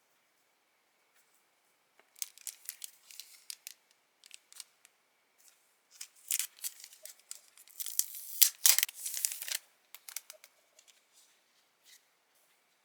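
Paper and sticker sheets being cut and handled: quick crisp snips and rustles in two spells. The second, starting about six seconds in, is louder and longer.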